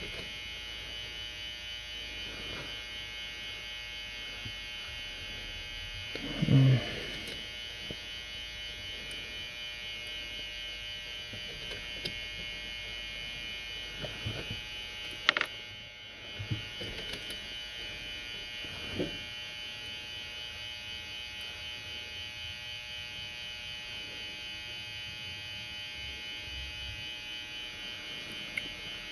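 Steady electrical buzz in the background, with occasional small clicks and taps of lock pins and tools being handled on the lock cylinder, including a soft knock about six seconds in.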